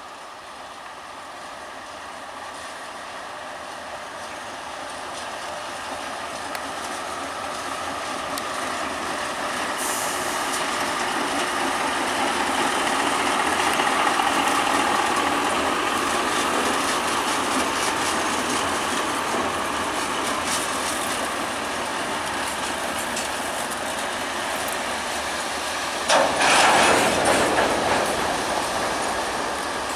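2M62UM two-section diesel locomotive approaching and passing with a freight train of open wagons. Its engine noise swells to its loudest about halfway through, then the wagons keep rolling by. A sudden loud rush of noise comes near the end.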